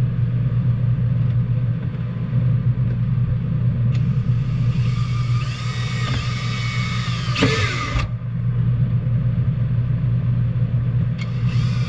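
A power drill whines for about three seconds as it bores through a 12 V RV ceiling fan's plastic housing into the cardboard box beneath, then stops abruptly. It starts again near the end. A steady low hum runs underneath throughout.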